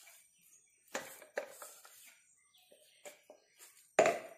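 Knocks and scrapes of a steel mixer-grinder jar being emptied of coarsely ground chana dal into a plastic bowl, with a louder knock about four seconds in.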